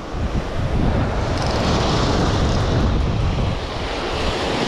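Wind buffeting the microphone over waves breaking on the shore: a steady, unbroken rush of noise, heaviest at the low end.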